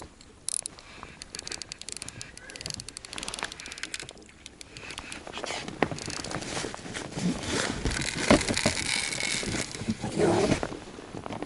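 Baitcasting reel cranked with a rapid clicking while a hooked pike is reeled in. From about five seconds in, louder knocks and rustling as the fish is fought close to the inflatable boat.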